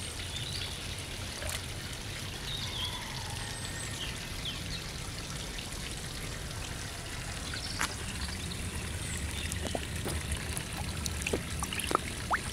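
Water trickling and pouring steadily into a garden koi pond, with faint bird chirps. Near the end come sharp wet splashes and slurps as koi and a sturgeon mouth food pellets at the surface.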